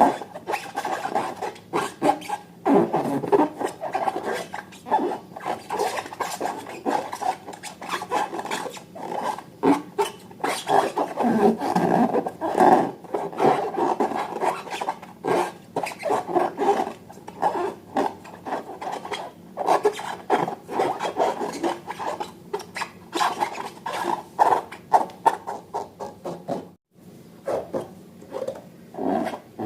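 Slime being worked by hand: a dense, irregular run of wet squelches, pops and crackles that pauses briefly near the end.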